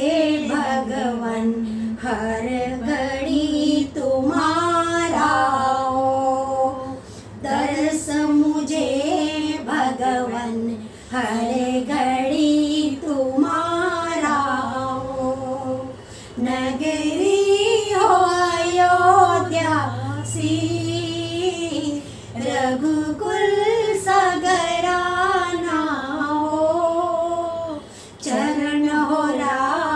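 Two women singing a Hindi devotional bhajan to Ram together without instruments, in long held, ornamented phrases with short breaks between lines.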